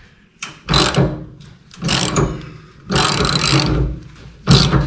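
A power tool run in four short bursts of under a second to about a second each, working on the bolts that hold the fuel tank to the chassis.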